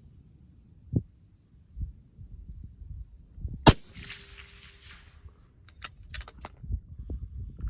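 A single shot from a .308 bolt-action precision rifle, a sharp crack with an echo trailing off for about a second. A few sharp clicks follow about two seconds later.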